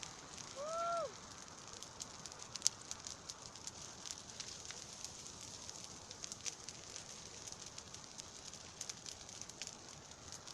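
Bonfire burning with steady hiss and frequent sharp crackles and pops, one pop louder than the rest a couple of seconds in. A short rising-then-falling tone sounds about half a second in.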